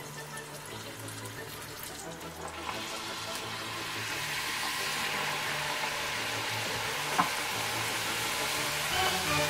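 Leftover pasta dough scraps deep-frying in hot oil in a saucepan: a sizzling hiss that starts about two and a half seconds in and grows steadily louder. There is a single sharp tick about seven seconds in.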